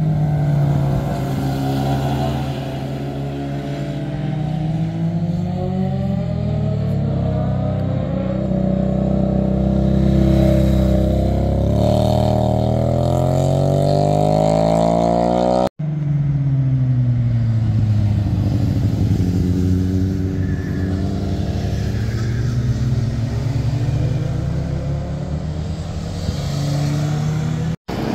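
Motorcycle engines passing through a bend, pitch rising and falling with throttle and gear changes as the bikes accelerate out of the curve. The sound cuts out for a moment about halfway, then another pass follows.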